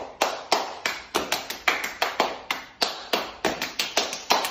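Rapid series of hand claps and slaps from two people doing a clapping routine, sharp claps at about four to five a second in an uneven rhythm.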